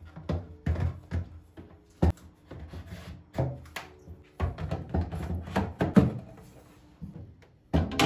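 Clear plastic refrigerator door bins being handled, lifted and set back into the door, giving a run of sharp plastic clicks and knocks. Soft background music plays underneath.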